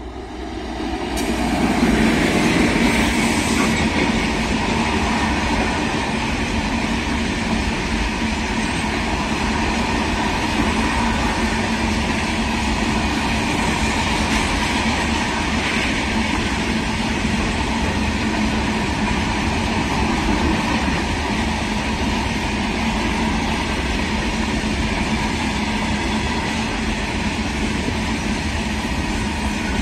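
Electric-hauled freight train passing close by. The noise builds over the first couple of seconds as the locomotive goes past, then a long rake of open-top freight wagons runs by with a steady rumble and rattle of wheels on the rails.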